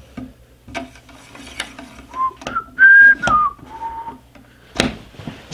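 A person whistling a short run of five clear notes, the loudest held high in the middle and the last one lower, over light clicks and taps of a brass cleaning rod working in a .22 rifle barrel, with a sharper knock near the end.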